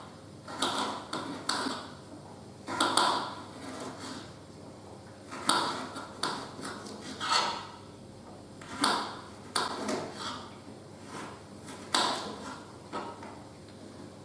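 Kitchen knife slicing a carrot thinly on a chopping board: a run of sharp taps as the blade cuts through and strikes the board, about one every second, with short pauses.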